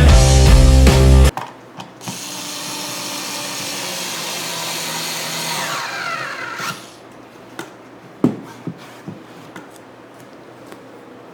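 Rock music cuts off about a second in; then a power drill runs steadily for about five seconds and winds down, followed by a few light knocks.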